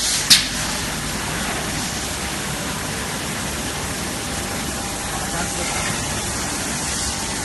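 CNC glass corner grinding and polishing machine running with a steady rushing hiss, and a sharp click about a third of a second in.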